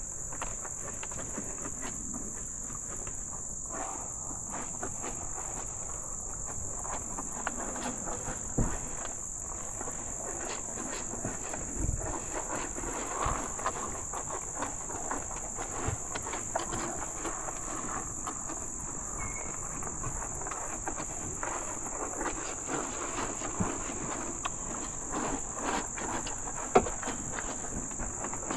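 A steady high-pitched chorus of crickets, with irregular crunching, clicking and shuffling from cattle eating sweet feed at a trough, and a few sharper knocks, the loudest near the end.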